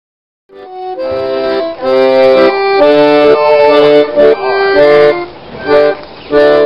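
Piano accordion playing a tune in held notes and chords that change about every half second, starting about half a second in. It plays more quietly for a second or so near the end, then comes back up.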